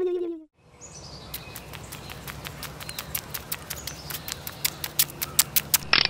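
Outdoor countryside ambience with small birds chirping, starting about a second in: many short, sharp, irregular chirps over a low steady hum.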